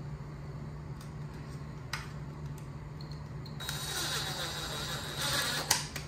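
Cordless drill-driver driving T15 Torx screws into plastic trim: the motor whirs in a run of about two seconds starting roughly three and a half seconds in, ending with a click near the end.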